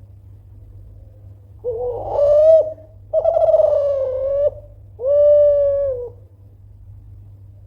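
Kelantan derkuku, a spotted dove of the song-contest strain, cooing loudly: three coo phrases about a second each, with short gaps between them.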